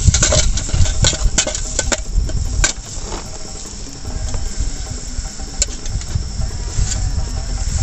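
Spoon clicking and scraping in a pot of chili and spices cooking over a wood fire, quick and frequent for the first two and a half seconds, then only a few scattered clicks and crackles. Insects chirp steadily throughout.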